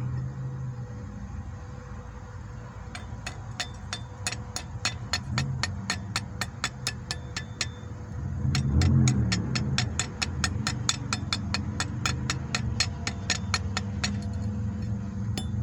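Rapid, evenly spaced sharp metal taps, about three or four a second, starting about three seconds in and stopping near the end: a chipping hammer knocking slag off a freshly laid E6013 weld bead on mild steel plate. A low rumble swells and fades about halfway through.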